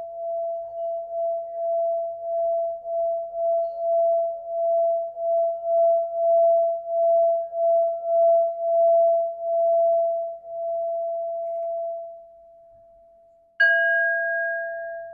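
Machine-made Tibetan singing bowl rubbed around its rim, giving one steady ringing tone that swells and wavers about twice a second, then fades. Near the end the bowl is struck once and rings out with a brighter overtone above the main tone.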